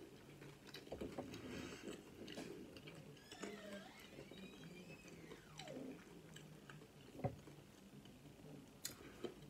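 Quiet chewing and biting of chicken taquitos, with small mouth clicks and a sharper click about seven seconds in. A faint tone rises and then falls in the background midway.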